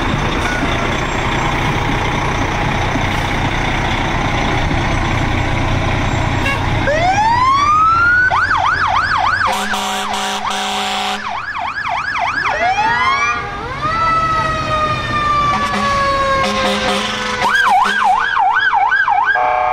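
Fire trucks passing with their engines running, then a siren winds up about seven seconds in and sounds a fast yelp of about three cycles a second, winds up again into a long, slowly falling wail, and returns to the yelp near the end. Short low horn blasts sound over the yelp twice.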